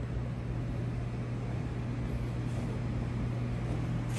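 Steady low machine hum with a faint hiss, unchanging throughout: the background drone of the room's equipment.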